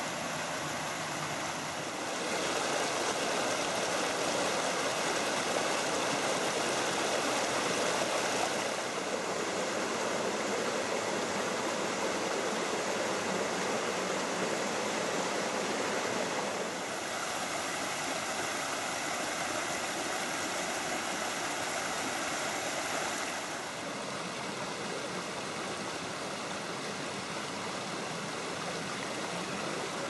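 A small rocky mountain stream running and splashing over stones, a steady rush of water that steps louder or softer several times.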